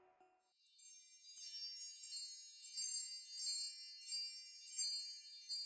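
High, tinkling chimes: bright clusters of ringing notes struck over and over, about two a second, beginning about a second in.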